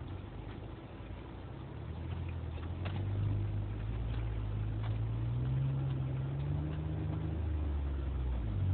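Jeep Wrangler JK engine heard from inside the cab, pulling along at low speed with its pitch slowly rising as it accelerates, and a few faint clicks over the engine.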